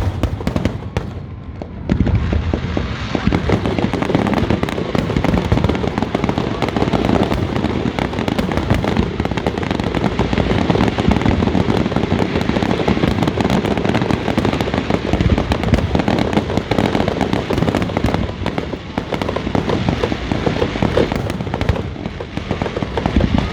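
Fireworks display: a dense, continuous barrage of bangs and crackling that starts about two seconds in.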